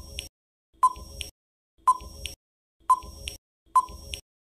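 Quiz countdown timer sound effect: a short, sharp tick-like beep about once a second, each with a faint click just after it.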